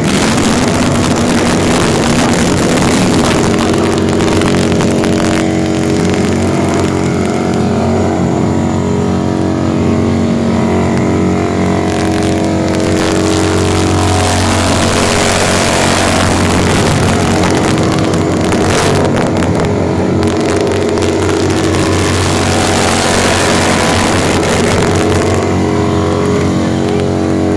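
V-twin touring motorcycle doing a burnout: the engine is held at high revs with a steady, unbroken note while the rear tyre spins on the pavement and smokes.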